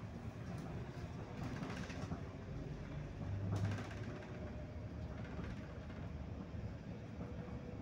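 Interior noise of a Mercedes-Benz Sprinter minibus driving: a steady low engine and road rumble with light rattles, and a louder thump about three and a half seconds in.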